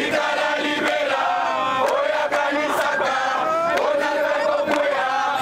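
A crowd of many voices chanting together, held notes overlapping and running on without a break.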